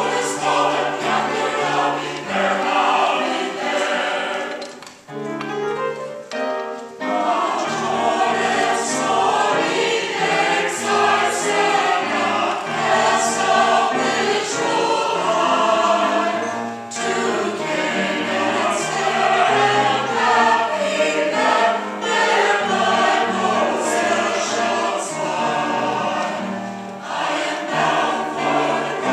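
Small mixed choir of women and men singing together in a church. The singing drops away briefly about five seconds in, then the full choir comes back in.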